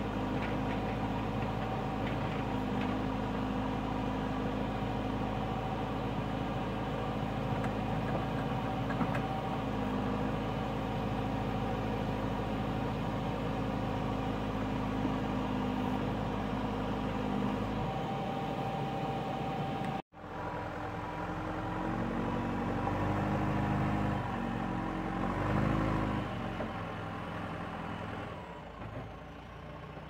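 JCB 3CX backhoe loader's diesel engine running steadily while it digs. After a sudden momentary dropout about two-thirds in, the engine note rises and falls several times, then eases off near the end.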